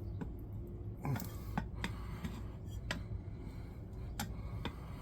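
Scattered sharp clicks and knocks, roughly one a second, of tools and a tire working against a mini bike's wheel rim as the bead of a new SunF Power II tire is pried on, over a low steady hum.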